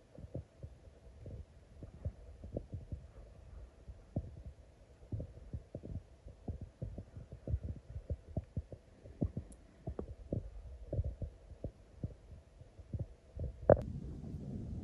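Irregular low thumps, two or three a second and uneven in strength, over a faint steady hum, with one sharp click near the end.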